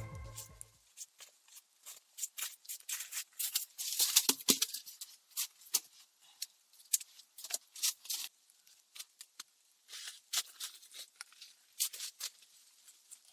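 Wood campfire crackling, with irregular sharp snaps and pops, a quick run of them about four seconds in.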